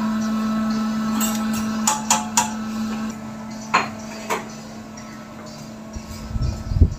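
Stainless steel tongs and a steel hotel pan clinking and knocking as the roasting pan of beef is handled, with several sharp metallic knocks over a steady hum of kitchen equipment. A few dull thumps follow near the end.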